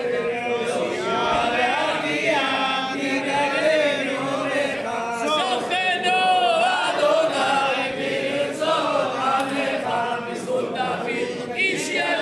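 A group of men chanting Hebrew prayers aloud together, many voices overlapping in a loose sung recitation.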